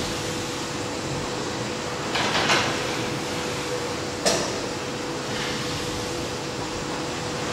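Steady mechanical hum with a constant mid-pitched whine, a brief swell of clatter about two seconds in and a single sharp knock about four seconds in.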